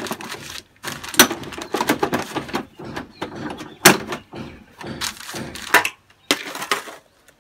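Plastic front cover of a Honda Activa 4G scooter being pulled off by hand: a series of sharp clicks and knocks with scraping between, the loudest about a second in and near four and six seconds in.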